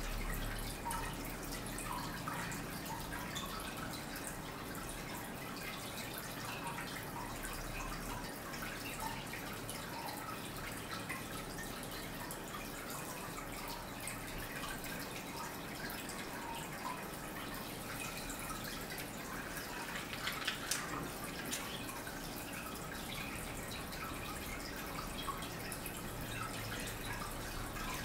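Soft scattered clicks and light rustles of small miniature pieces being set by hand into loose soil, over a steady hiss. About two-thirds of the way through comes a short cluster of louder clicks.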